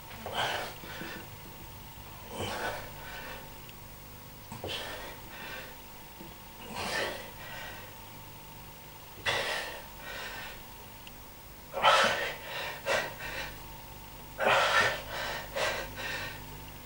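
A man's forceful breaths during close-grip push-ups, one sharp exhalation with each rep roughly every two seconds. The breaths come quicker and louder in the last few seconds.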